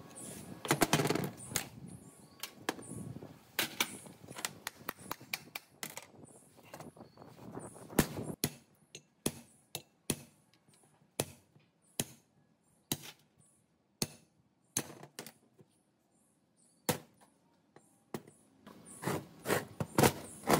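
Irregular sharp metal knocks and clinks from taking apart a rusted electric motor: a pry bar works at the end-cover seam, and the end cover with its rotor and the stator housing are knocked and set down on a steel tread-plate bench. The knocks come thickest about a second in and again near the end.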